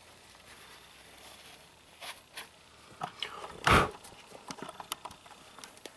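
Paper shop towel rustling as it wipes lapping paste off the valve and seat in an aluminium cylinder head, with handling noises and one louder thump about two-thirds of the way in, followed by a few small clicks.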